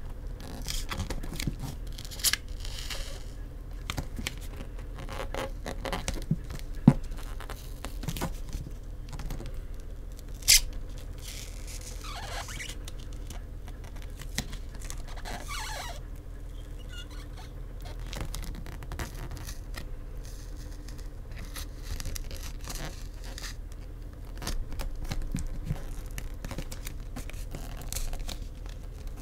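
A playing card sliding under the glass back of a Samsung Galaxy S24, scraping and crackling as it cuts through the adhesive. Small clicks are scattered throughout, with two sharp snaps about seven and ten and a half seconds in.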